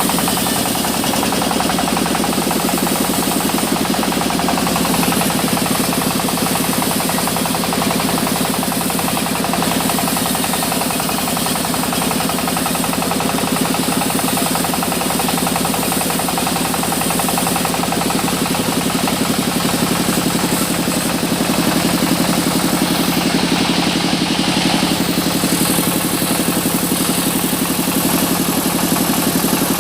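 Sawmill machinery running steadily with a continuous, engine-like drone that holds the same pitch throughout.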